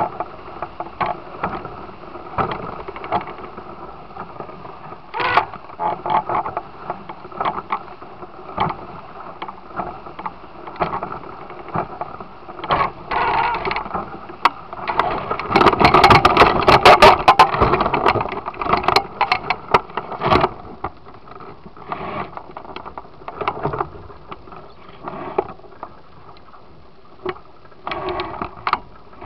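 Water rushing and slapping against the hull of a Musto Skiff sailing dinghy under sail in chop, with many sharp splashes. The splashing gets loudest and densest for a few seconds past the middle.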